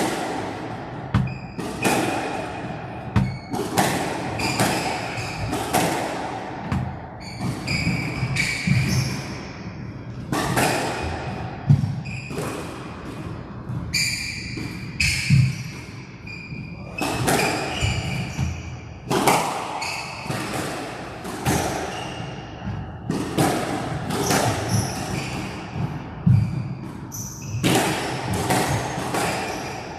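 Squash rally: the ball is struck by rackets and smacks off the walls in sharp thuds at an irregular pace, about one to two a second, with brief high squeaks between the strikes.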